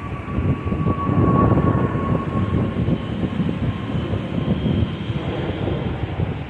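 Jet noise from a twin-engine Airbus A321 airliner flying overhead: a steady rumble with a thin whine on top that fades out about halfway through.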